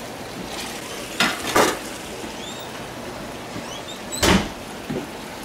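Steady sizzle of food frying in a pan on the stove, with a couple of short kitchen clatters about a second and a half in and a sharp clunk of pans or dishes about four seconds in.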